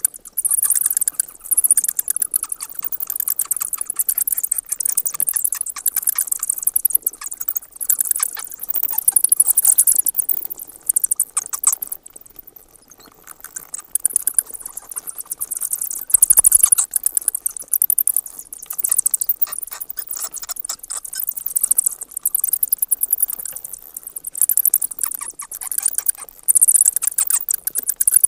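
Bats chattering: rapid runs of high-pitched squeaks and clicks, with a short lull about twelve seconds in.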